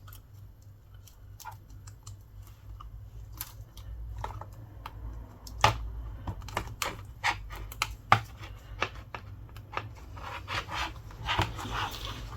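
Irregular small clicks and taps of fingers and tools on an iPad Air's internals as the display flex-cable connectors are pressed onto their sockets one by one, with a few sharper clicks among them.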